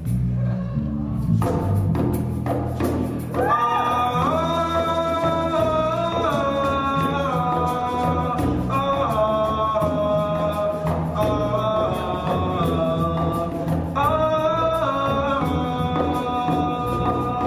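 Live reggae band: a man's lead vocal over electric bass, djembe and shakers. After a few seconds of bass and percussion, the voice comes in with long held, wavering notes.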